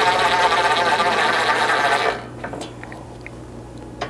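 Cordless RIDGID impact driver with a 4mm hex bit running under load as it snugs an M6 button-head bolt into the tailgate, then stopping about two seconds in. A few faint clicks follow as the bit is moved to the next bolt.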